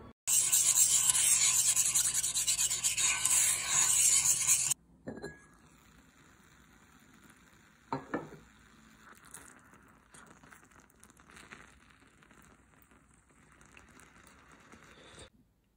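Korean steamed egg (gyeranjjim) sizzling and bubbling in a ceramic pot over the heat: a loud, even hiss that stops abruptly after about four and a half seconds. After it come only a few faint knocks and clicks.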